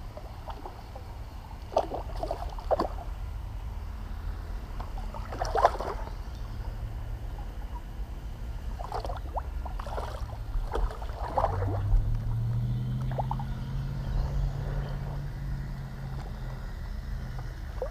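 Scattered short splashes and knocks as a small hooked carp is brought in through the water, over a steady low rumble. About twelve seconds in, a low engine drone rises and then fades a few seconds later.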